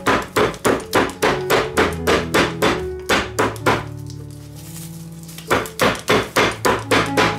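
Metal-headed meat mallet pounding raw meat cutlets flat through plastic wrap, about three blows a second. The blows pause for about a second and a half midway, then start again. Background music plays underneath.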